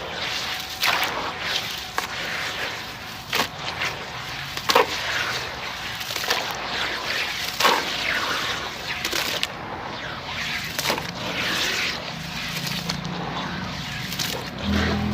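Dry sand-cement chunks crumbling and cracking apart, with a run of uneven crunches and sharp snaps, the loudest about five and eight seconds in.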